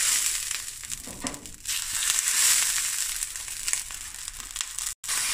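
Slices of spiced beef sizzling in hot oil as they are laid one by one into a stainless steel frying pan. The sizzle grows louder about two seconds in, and the sound cuts out for a moment near the end.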